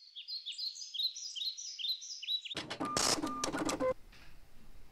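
A small songbird singing a quick run of short, high chirps, each falling in pitch. About two and a half seconds in this gives way to a louder busy burst of clicks and rustling that lasts about a second and a half.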